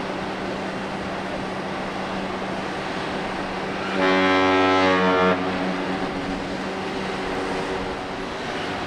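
A ship's horn sounds one deep blast of about a second and a half, starting about four seconds in and cutting off sharply, over a steady background hum.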